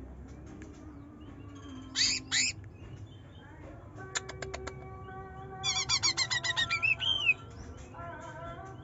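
A cucak ijo (green leafbird) singing in sharp, rapid chattering bursts. There are two short bursts about two seconds in, a quick run of clicks near the middle, and a longer fast series that ends in a bent whistled note.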